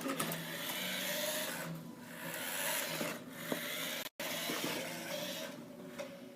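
Remote-control toy car driving laps, its small electric motor whirring and its tyres rubbing over the surface in passes that swell and fade several times.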